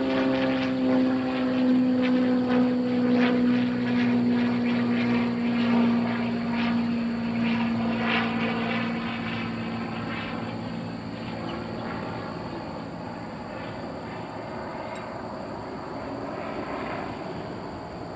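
Low-flying aircraft passing overhead: a steady engine drone that slowly drops in pitch over the first ten seconds or so, then fades away.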